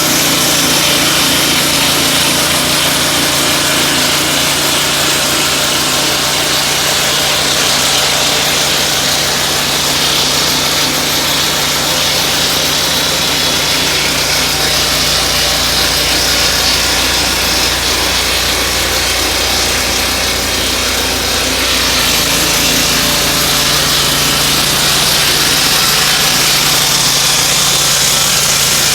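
Turbosawmill M10-22A portable sawmill running steadily and cutting tough native hardwood. Its sound deepens for several seconds in the middle, then returns to the earlier note.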